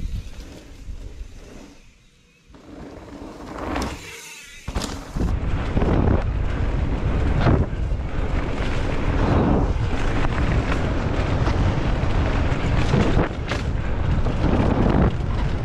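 A mountain bike comes down the dirt trail past a trailside microphone, its sound rising about four seconds in. From about five seconds on, steady wind buffeting and tyre rumble come from a camera riding on the bike as it speeds down the singletrack.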